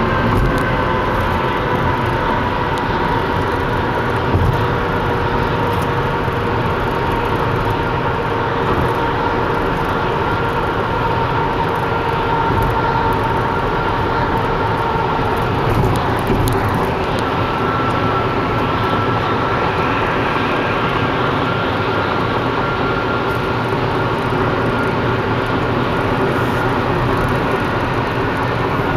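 Car driving at highway speed, heard inside the cabin: steady road and tyre noise with a faint drone that slowly drifts lower in pitch.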